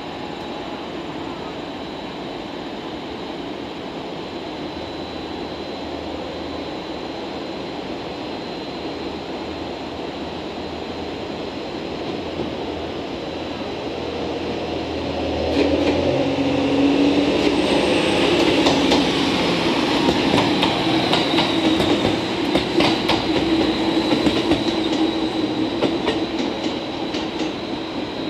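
DEC741 electrical inspection diesel railcar coming in at low speed and running past. Its engine hums steadily at first. From about halfway it gets louder, with wheels clacking irregularly over rail joints and points.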